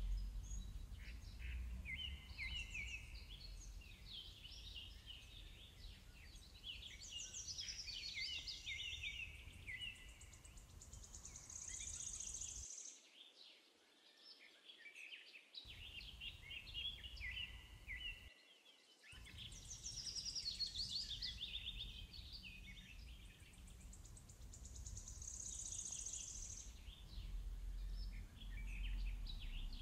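Several birds singing, with many short chirps and trills overlapping, over a faint low rumble that cuts out briefly twice around the middle.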